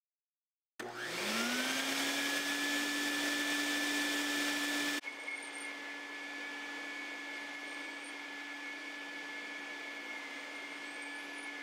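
Ocean Blue water-filtration canister vacuum switching on about a second in, its motor spinning up in a rising whine to a steady high tone over a rushing hiss, then running steadily while vacuuming carpet. The sound drops in level about five seconds in.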